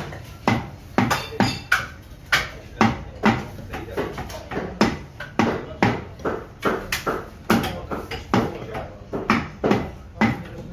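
Heavy butcher's cleaver chopping beef into chunks on a thick wooden chopping block: sharp chops in a steady rhythm, about two a second.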